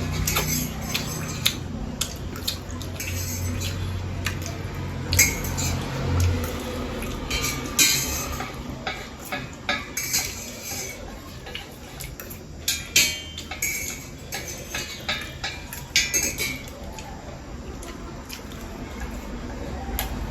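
Eating utensils clinking and scraping against a dish of noodles, with many sharp, irregular clinks.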